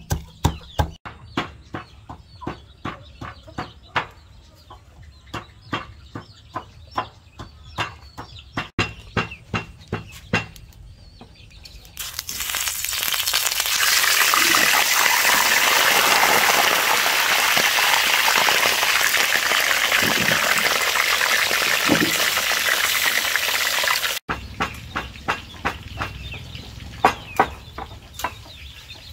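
A knife chopping on a cutting board in a steady rhythm of about two strokes a second. About twelve seconds in, it gives way to a loud steady sizzle of food frying in hot oil, which stops suddenly about twelve seconds later, and then the chopping resumes.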